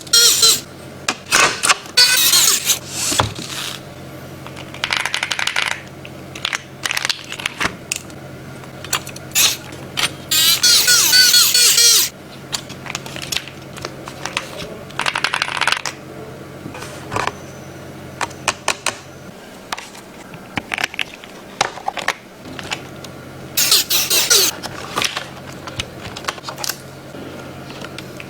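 Clicks and taps of plastic keyboard parts being handled and snapped together during a mechanical keyboard build, with several longer scraping and rustling bursts, over a steady low hum.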